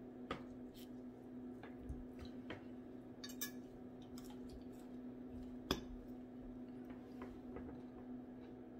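Quiet eating at the table: fingers handling fried fish and fries on a glass plate, with scattered light taps and clinks, the sharpest about six seconds in. A steady low hum runs underneath.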